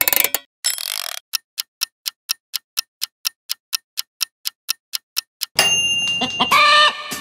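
Rotary knobs of a Geek AiroCook air fryer oven clicking as they are turned, then the oven's timer ticking evenly, about four ticks a second. About five and a half seconds in, the ticking gives way to a louder ringing sound with steady tones.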